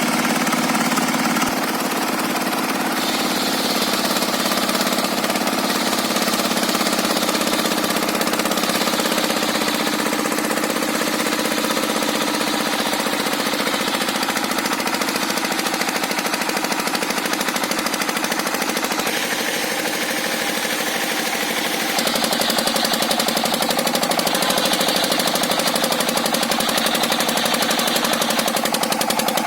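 Engine-driven circular sawmill running, the engine chugging with a fast, steady knocking beat. A higher hiss rises over it for several seconds at a time, twice, as the saw works.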